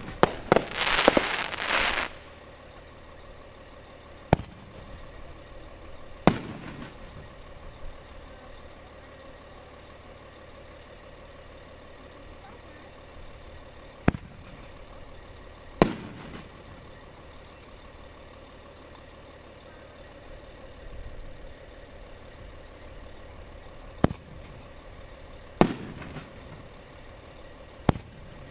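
Fireworks: a dense crackling burst for the first two seconds, then single sharp bangs every few seconds, about seven in all, some followed by a short rumbling echo.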